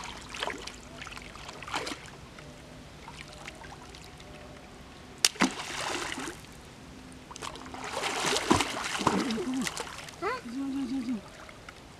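Water splashing as a conical bamboo fish trap is pushed down and worked in shallow muddy water by someone wading. A sharp slap comes about five seconds in, followed by two longer spells of splashing, and voices call out briefly near the end.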